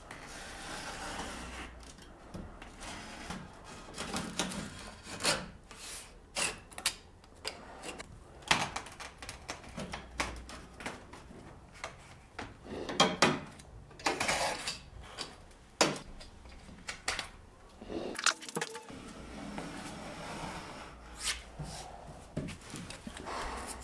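Thin sheet of wood veneer being handled, bent and pressed down by hand on a wooden dresser top: irregular crackles, taps and knocks with some rubbing.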